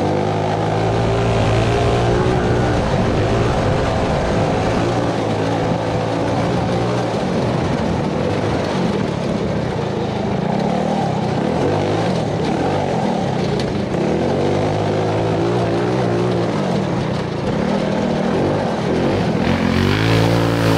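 Big-valve, big-cam Tillotson 225 single-cylinder go-kart engine held at high revs through a lap of a dirt course, with a steady drone for most of it. The drone is partly buried under wind and rough-ground noise in the middle. Near the end its pitch shifts as the kart comes by.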